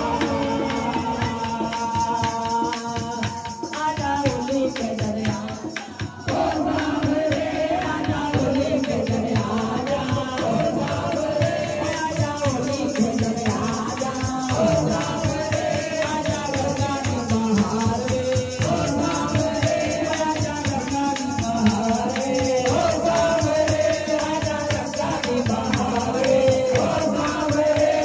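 A Hindu devotional song (bhajan to the Mother Goddess) sung through a microphone and PA, with a steady percussion beat throughout and a brief dip in loudness about five seconds in.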